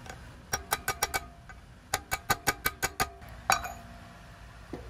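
Light hammer taps, metal on metal, seating a part flat into a Mercedes Sprinter front wheel hub during a wheel bearing replacement. About five quick taps come about half a second in, then a run of about eight more, then one harder blow that rings a little longer.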